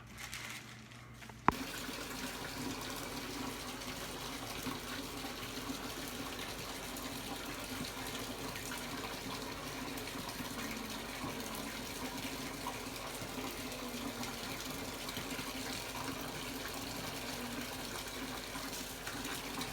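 Water running steadily from a tap into a sink, starting abruptly with a click about a second and a half in.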